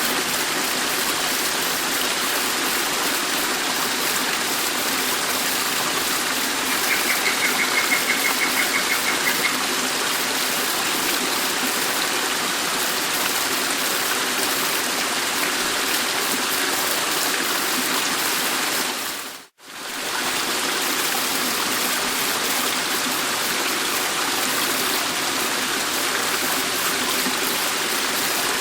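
Dettifoss waterfall: a steady, dense rush of falling water. A short, high, rapid pulsing sound rises above it about a quarter of the way in, and about two-thirds through the sound drops out for a moment and comes back.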